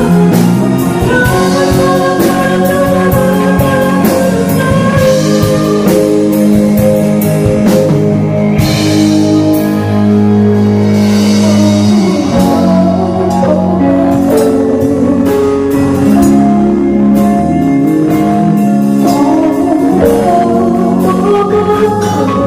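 Rock band music with electric guitar and a drum kit playing, long held chords over a steady beat of drum strokes.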